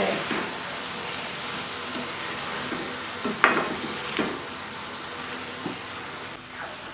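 Oyster mushrooms and onion paste sizzling in oil in an iron kadhai, with a few scrapes of a spatula stirring them. The mix is being stirred until the onion paste's water cooks off.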